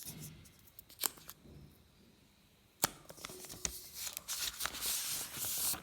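Hands handling a phone's packaging: a sharp click about a second in and another near three seconds, then a couple of seconds of rustling, as of plastic wrap or paper being pulled, that stops abruptly at the end.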